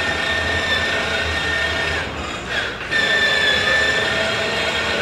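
Battery-powered 6-volt ride-on toy quad's electric motor and gearbox whining steadily as it drives on a hardwood floor. The whine weakens and drops in pitch about two seconds in, then picks up again at full strength about a second later.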